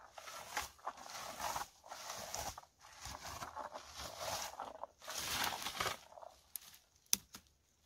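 A red plastic berry-picking rake combing through bilberry bushes: leaves and twigs rustle and swish in repeated strokes. The rustling stops about six seconds in, followed by a few sharp clicks.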